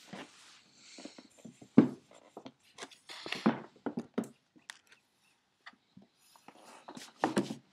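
Two cats scuffling on a hardwood floor: irregular soft thumps, knocks and scrapes of paws and bodies, with one louder thump about two seconds in.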